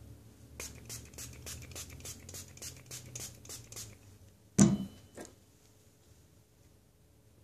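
A soft baby hairbrush brushed quickly over a reborn doll's hair: a run of short scratchy strokes, about five a second. The strokes stop, and a little later a loud knock sounds, followed by a lighter one.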